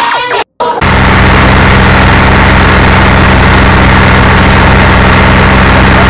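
An engine idling steadily and loudly, with a dense steady hiss over it.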